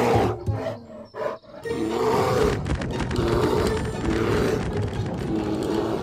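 Cartoon rhinoceros beetle roaring and growling: a short burst at the start, a brief gap, then one long rough growl with a wavering pitch, over background music.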